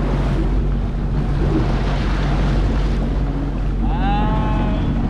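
Jet ski engines idling steadily, with water slapping the hulls and wind buffeting the microphone. About four seconds in, a short pitched call from a voice rises and then levels off.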